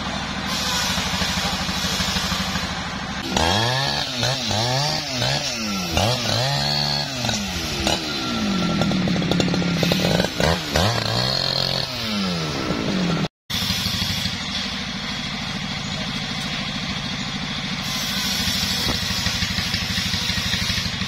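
Jonsered chainsaw running at idle, then revved up and down over and over for about ten seconds, its pitch rising and falling each time. After a sudden break about 13 s in, an engine runs steadily.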